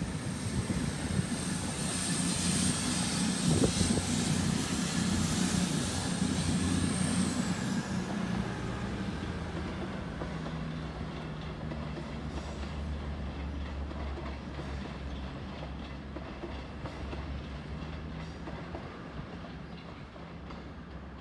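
CrossCountry Class 221 Super Voyager diesel-electric multiple unit pulling away, its underfloor diesel engines running with a steady drone and a steady high whine that stops about seven seconds in. The sound fades as the train draws off into the distance.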